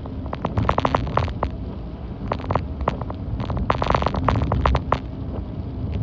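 Wind and movement rumbling on the microphone, with irregular clusters of sharp ticks and clicks, densest about half a second in and again around four seconds in.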